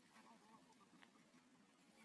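Near silence: faint background noise with a few faint ticks.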